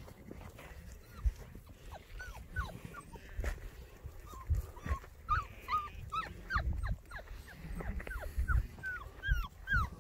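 Six-week-old Border Collie puppy giving repeated short, high-pitched yips and whines, one or two a second, coming thicker toward the end.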